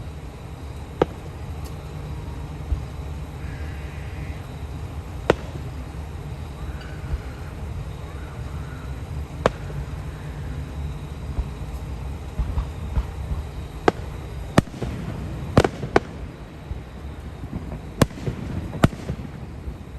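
Aerial fireworks bursting: single sharp bangs every few seconds at first, then coming faster in a cluster in the second half, over a steady low background rumble.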